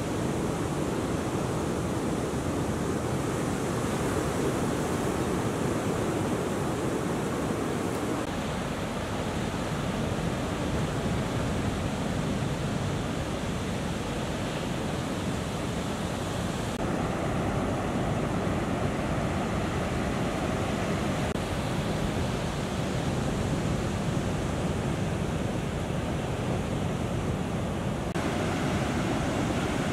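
Ocean waves breaking in the surf: a steady rush of white water with no single crash standing out. Its tone shifts suddenly a few times.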